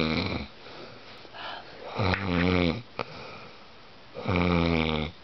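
A sleeping man snoring loudly: deep, rattling snores about every two seconds, the tail of one at the start and two full snores after it.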